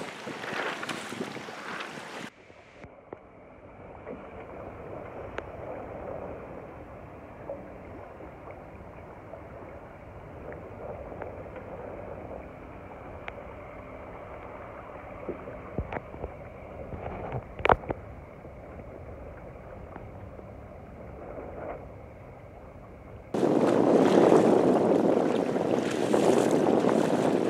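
Wind buffeting the microphone and water rushing along the hull of a small sailing sharpie under way. A quieter, duller stretch fills the middle, with a few sharp taps, before the loud rush of wind and water returns about four seconds from the end.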